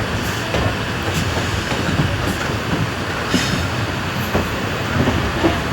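Moving passenger train heard from on board: a steady rumble of wheels on the track with irregular knocks and rattles.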